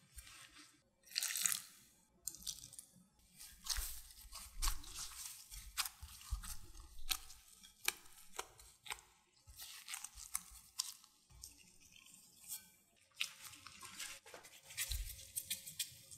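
Gloved hands kneading a dough of mashed potato and potato starch in a glass bowl: irregular short rustling, squishing strokes as the starch is pressed and worked in.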